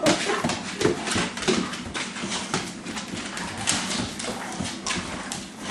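Dogs' claws clicking on a hardwood floor as the dogs walk about, a quick irregular run of clicks.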